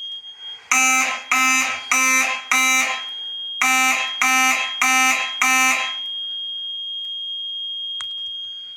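Fire alarm horns sounding the coded 4-4 pattern: four buzzy blasts, a short pause, then four more. The alarm is set off by a restroom heat detector heated with a hairdryer. A faint steady high tone runs underneath.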